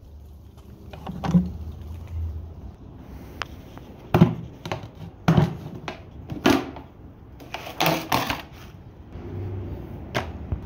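Sharp plastic clicks and knocks of a hard plastic carrying case being handled, its latches snapped and lid opened, with a low rumble in the first couple of seconds.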